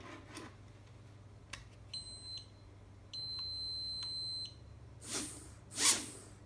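The Cheerson CX-10 nano quadcopter's controller gives a short high beep and then a longer one as it pairs with the drone. Then the quadcopter's tiny brushed motors spin up in two brief whirring bursts, the second the louder, as the freshly replaced motor is tested.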